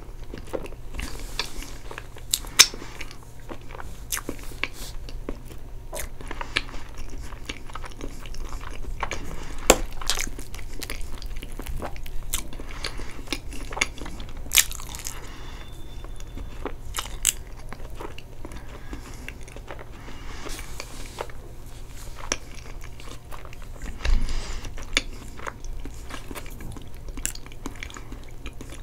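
Close-miked eating sounds: wet chewing and mouth smacks on soft chocolate cake, whipped cream and caramel sauce. Sharp clicks come at irregular moments throughout.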